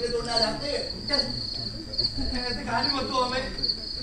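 Cricket chirping steadily, a short high chirp repeating a little more than once a second, with indistinct voices beneath it.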